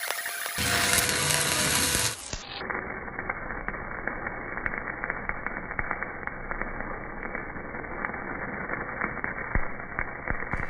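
Stick (arc) welding with a 5/32-inch 350 electrode, building up weld on a worn pin: the arc crackles steadily with many irregular sharp pops. About two seconds in, a louder hissing stretch gives way to the crackle.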